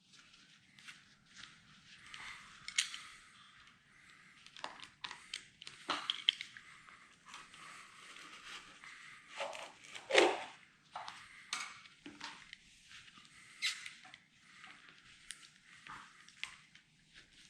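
Intermittent scrapes, creaks and clicks of hand work freeing a VW T2 bay-window bus windscreen and its rubber seal from the frame, with a sharper knock about ten seconds in.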